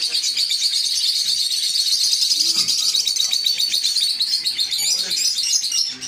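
A flock of lovebirds chattering continuously, a dense stream of rapid, high-pitched chirps overlapping without a break.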